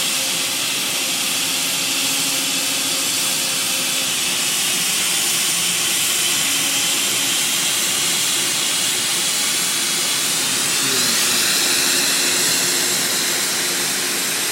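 Hot-gas plastic welding torch blowing a steady hiss of zero air instead of nitrogen while a weld is run. Its tone shifts briefly about eleven seconds in.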